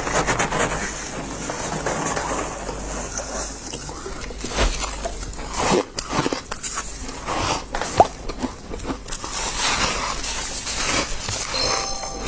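Close-miked chewing of soft, powdery ice: a continuous run of small, crackling crunches, with a few louder bites.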